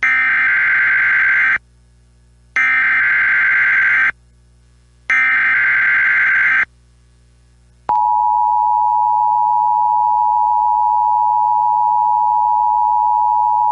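Emergency Alert System SAME header data sent three times, harsh buzzy bursts of digital data with short gaps between them, followed by the NOAA Weather Radio 1050 Hz warning alarm tone, a steady loud single-pitched tone that starts about eight seconds in. Together they signal that a new weather warning is about to be read.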